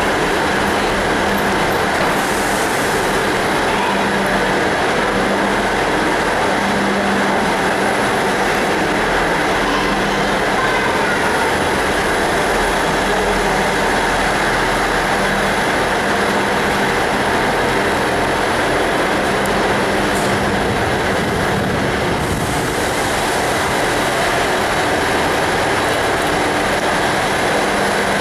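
Steady, even noise of diesel trains running at the station platforms, with a faint low hum underneath.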